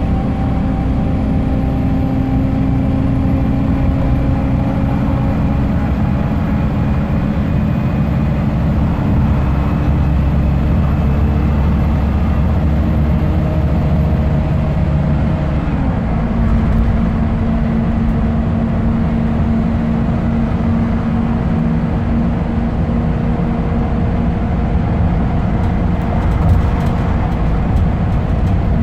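Scania K270UB single-deck bus heard from inside the saloon while under way: its rear-mounted five-cylinder diesel runs steadily over tyre and road noise. The engine note rises slowly, then drops in pitch about halfway through and holds steady after.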